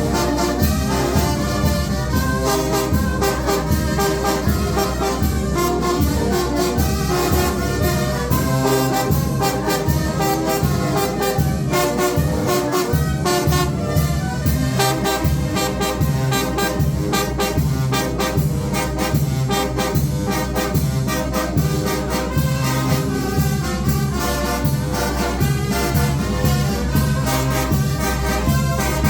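Mexican banda de viento (brass band) playing: trumpets and trombones carry the tune over a steady beat of drum strikes.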